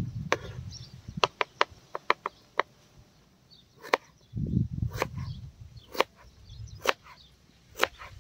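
Kitchen knife dicing sliced raw potato on a plastic cutting board. A quick run of light taps comes first, then single chopping strokes about once a second.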